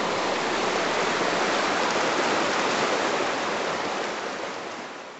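Steady rush of water, an even hiss with no other sound in it, fading away over the last second and a half.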